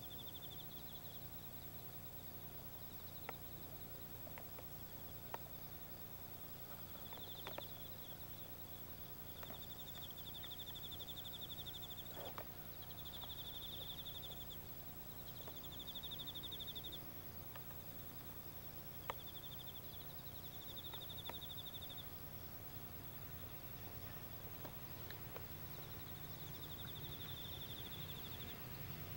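Insect trilling in repeated high, rapid bursts of a second or two each, over a steady low hum, with a few sharp clicks.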